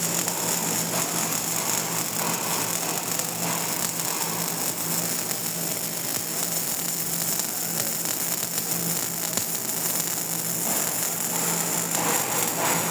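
Welding arc crackling steadily, a dense even sizzle of fine crackles over a faint low hum.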